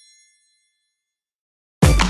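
The last bell-like chime of a Nokia N91 ringtone dies away in the first half-second, then there is silence. Near the end the next ringtone, a pop dance track, starts suddenly.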